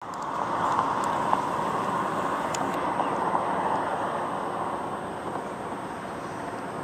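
A vehicle passing on the road: a steady rush of tyre and road noise that swells within the first second, then slowly fades.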